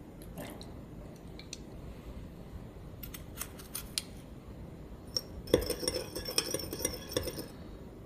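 Metal spoon stirring sauce in a small glass bowl, clinking rapidly against the glass for about two seconds in the second half. Before that come a few light taps of the spoon.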